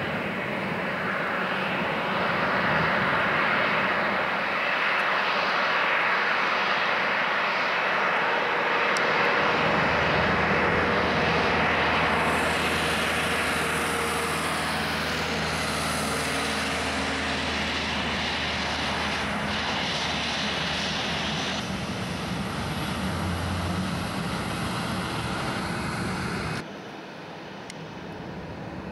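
Boeing 737-700's twin CFM56-7B turbofan engines running as the jet taxis past: a steady rushing hum with a high whine partway through. The sound drops abruptly near the end.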